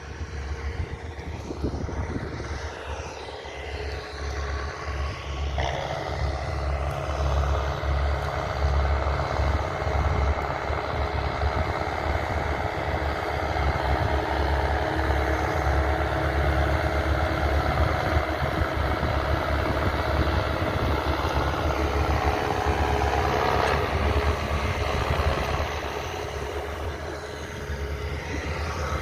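Engine of heavy farm machinery running steadily. It grows louder and fuller about six seconds in and eases off a little near the end.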